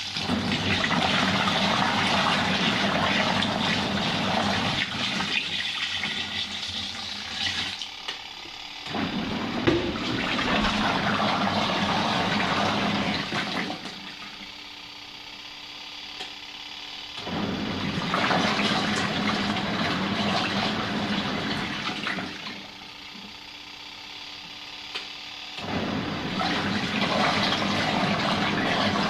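Twin tub washing machine's wash tub churning water and clothes in bouts of several seconds, with a quieter pause of about three seconds between bouts.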